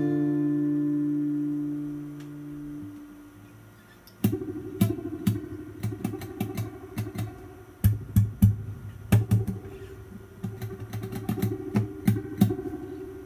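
Acoustic guitar heard through a spring reverb: a chord rings out and fades over the first few seconds. About four seconds in, a run of irregular sharp taps and clicks starts over a held note and goes on to near the end.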